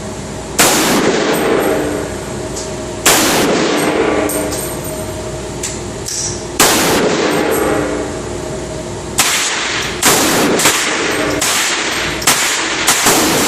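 Saiga .308 rifle firing single shots, each with a long echoing tail. The first shots come about three seconds apart, then quicker, with some quieter reports mixed in near the end.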